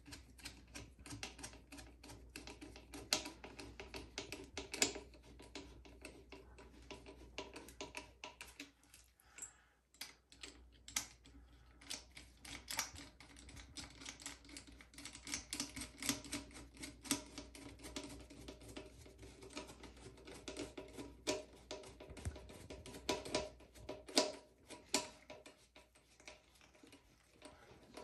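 Hand screwdriver driving screws into a bidet seat's mounting plate on a toilet: a rapid, irregular run of small clicks and scrapes, with a brief lull about nine seconds in.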